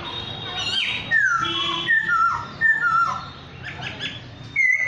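A bird singing: a run of clear whistled notes, each sliding down in pitch, several in quick succession, with a short lull before a single high note near the end.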